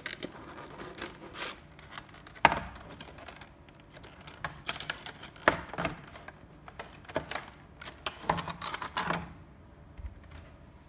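Clear plastic figure packaging being handled and cut open: scattered crinkles and sharp clicks, the sharpest about two and a half seconds in.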